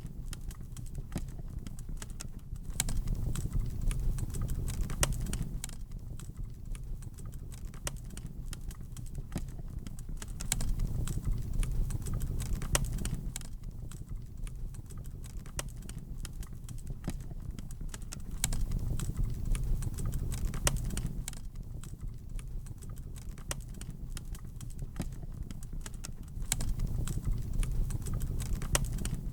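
Wood fire in a fireplace crackling, with frequent sharp pops and snaps over a low rumble. The rumble swells for a few seconds about every eight seconds.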